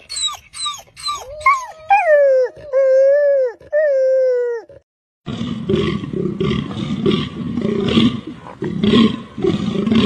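Meerkats calling: a quick run of short falling chirps that stretch into longer, wavering whistled calls, stopping about five seconds in. After a brief gap, a greater kudu gives harsh, noisy calls repeated about twice a second.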